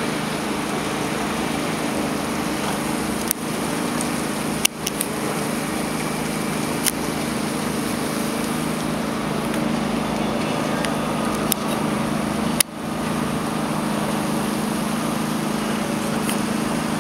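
Steady low mechanical hum of city-centre traffic and machinery, broken by a few sharp clicks.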